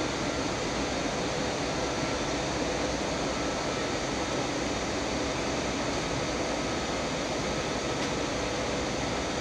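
Steady cabin noise inside an Airbus A319 jetliner in flight after takeoff: the even rush of airflow and jet engines, with a faint steady hum beneath it.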